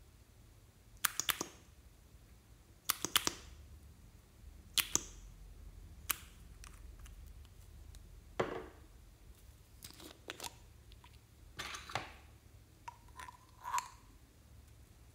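Sharp clicks and taps from small plastic cosmetic containers handled over a glass dish, about eight of them one to two seconds apart, some as quick double or triple clicks.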